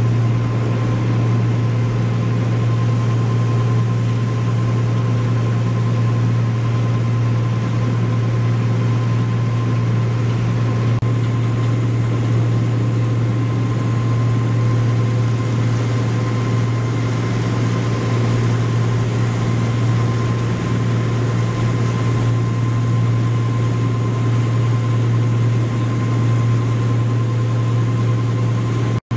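A boat's motor running steadily at cruising speed, a constant low drone with a rushing hiss of water and wind over it.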